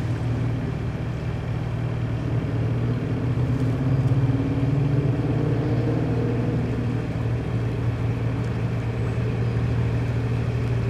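Narrowboat diesel engine running steadily, a low even hum whose pitch shifts slightly a few seconds in.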